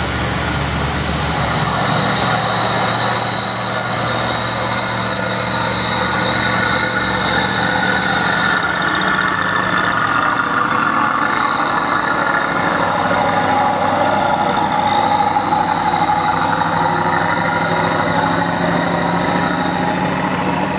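Heavy diesel tank trucks passing slowly at close range, their engines running steadily, with a steady high whine above the engine sound.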